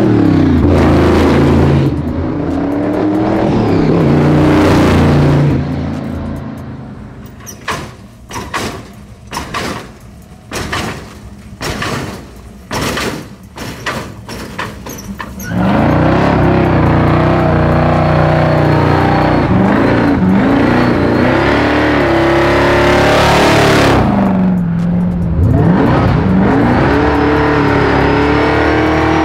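A series of car clips. First a supercharged V8 custom car revs as it drives by. From about 7 to 15 s a lowrider's hydraulics clack and thump as it hops. Then, from about 15 s to the end, a Chevy pickup's V8 revs hard and holds high revs through a burnout, dropping and rising again near the end.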